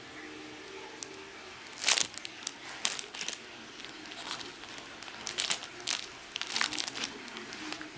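Thin clear plastic packaging crinkling in irregular bursts of crackles as bagged yoyo rings and yoyos are handled.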